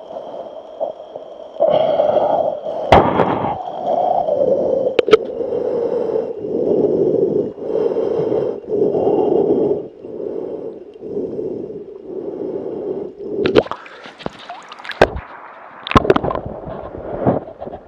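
Heavy, rasping breathing through the mouth around an action camera gripped in the teeth ("Darth Vader noises"), one breath about every second. Near the end, water splashing and gurgling as the camera dips into the river.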